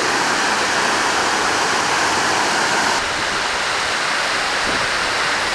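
Small waterfall close by: a loud, steady rush of falling water, easing slightly about three seconds in.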